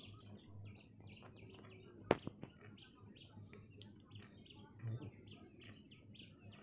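Birds chirping faintly in the background, a run of short repeated chirps, with one sharp click about two seconds in and a softer bump near five seconds.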